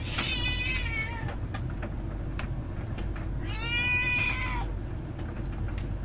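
A cat meowing twice, each call about a second long, the first at the start and the second about three and a half seconds in. Under it, the Samsung DV90R6200QW heat-pump clothes dryer runs with a steady low hum, quieter than the cat.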